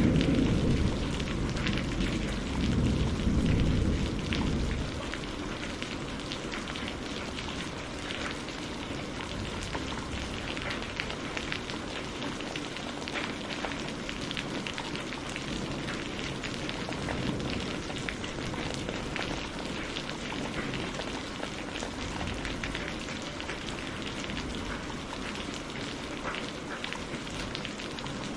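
Steady rain in a thunderstorm, an even hiss with scattered drop ticks. A low thunder rumble fades out over the first few seconds.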